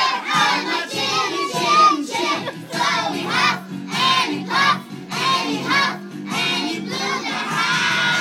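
A group of young children singing together, many small voices in unison.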